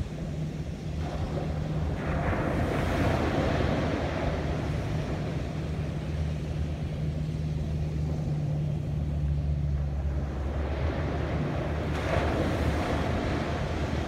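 Ocean surf breaking and washing up the beach: two swells of wash, one about two seconds in and another near the end. A steady low hum runs underneath.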